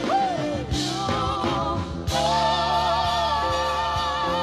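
Gospel worship music: a band accompanying held, sustained sung notes, with a singer's voice sliding in about the start.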